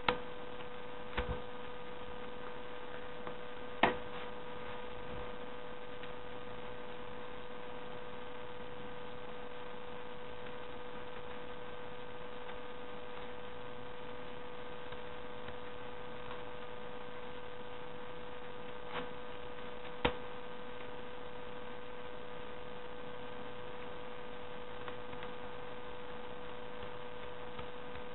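Steady electrical hum with a constant high tone over a hiss. A few sharp clicks stand out, the loudest near the start, at about four seconds and about twenty seconds in.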